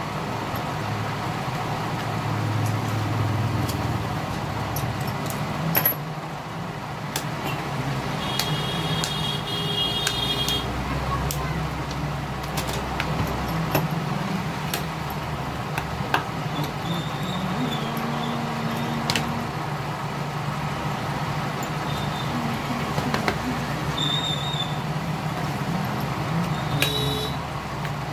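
Steady background rumble of road traffic, with scattered small clicks and taps from the plastic casing and parts of a feature phone being handled. A brief high tone sounds about eight seconds in and lasts about two seconds.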